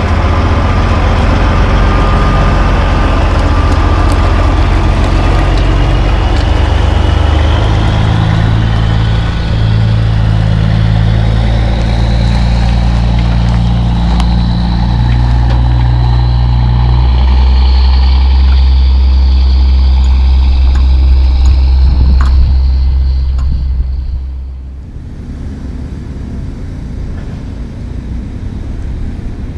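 Peterbilt 379 semi truck's diesel engine, loud and low as the truck drives slowly past, its note changing in steps with a rising whine over it. Near the end the sound drops suddenly to a quieter engine hum.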